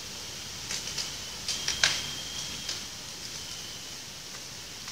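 A quick run of sharp clicks, the loudest about two seconds in, over a steady high hiss with a thin high tone.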